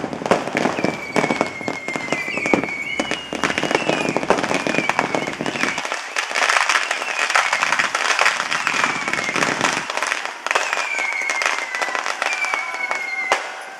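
Fireworks and firecrackers going off in a dense, continuous run of cracks and pops, with several high whistles that slide in pitch over the top.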